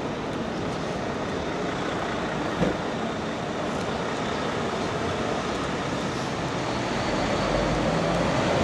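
Steady wash of rainy city-street noise: traffic and tyres on wet road, with a single short knock about two and a half seconds in. It grows a little louder near the end.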